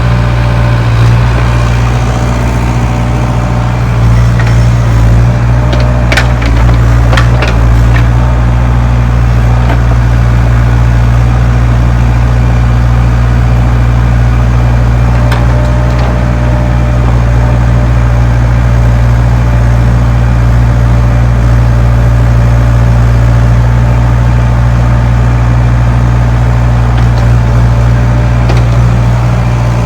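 2002 Bobcat compact excavator's diesel engine running steadily while it works, with a few sharp knocks about six to eight seconds in.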